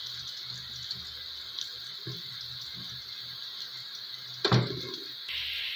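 Sliced onions sizzling steadily in hot oil in a pot as they brown, with a single knock about four and a half seconds in.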